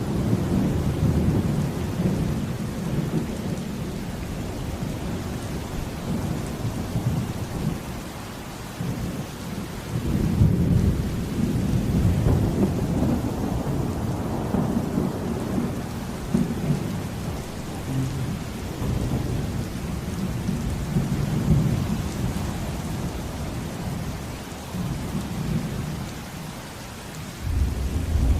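Thunderstorm with steady heavy rain and deep rolling thunder that swells and fades in long waves, loudest about ten seconds in.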